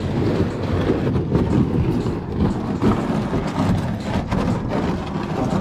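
Plastic kayak hulls being dragged over dirt and gravel, a continuous rough scraping and grinding.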